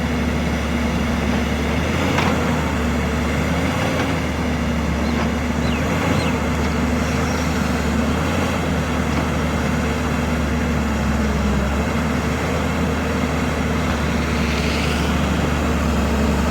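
JCB 205 excavator's diesel engine running steadily, a constant low hum, with a couple of faint clicks about two and four seconds in.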